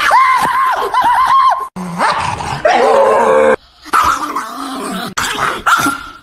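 Small Chihuahua-type dog yapping in a quick run of about eight short high yips lasting about a second and a half, followed after a sudden cut by more pitched vocalizing.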